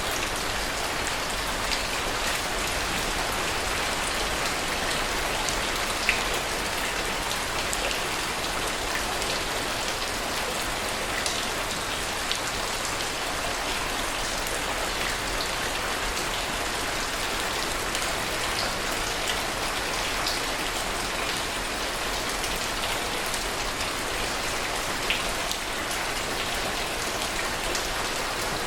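Steady heavy rain falling, a continuous hiss with scattered sharp drop ticks; a few louder individual drops stand out.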